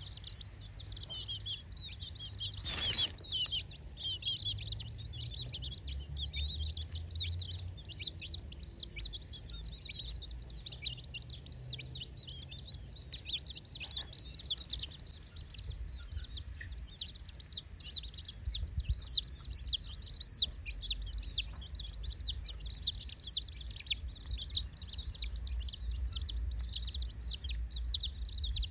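A group of young domestic chicks peeping continuously, many high, downward-sliding cheeps overlapping one another. A single sharp click about three seconds in.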